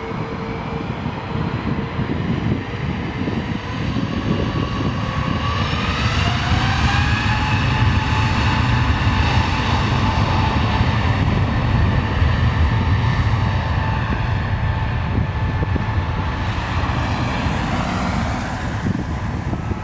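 Airbus A321neo's twin turbofan engines spooling up to takeoff thrust. The whine rises in pitch about five seconds in, then holds steady over a deep rumble as the jet starts its takeoff roll.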